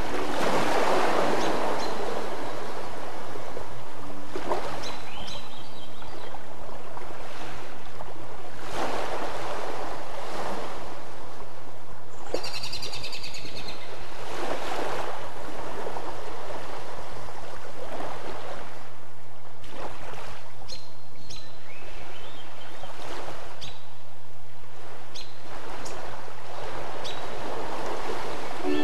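Ocean surf washing in swells every couple of seconds, with a few short bird chirps and a steady low hum underneath.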